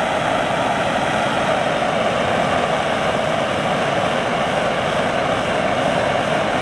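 Hand-held gas torch burning with a steady hiss, its flame heating a strip of scrap plastic until it goes soft for a weld.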